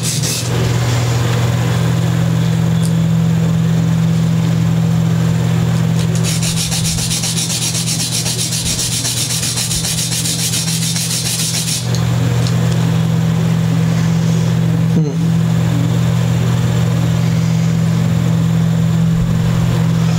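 A guitar nut being rubbed back and forth on sandpaper to shave down its sides: a rapid, scratchy sanding, heaviest for several seconds in the middle. A steady low hum runs underneath.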